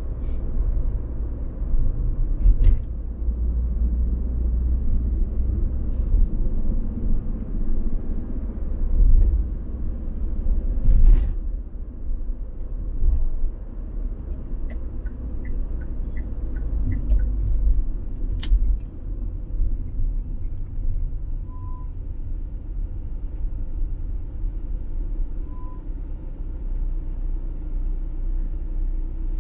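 A car being driven, with a steady low road and engine rumble, scattered light clicks and a short run of ticks in the middle. Two brief faint beeps come about four seconds apart in the second half.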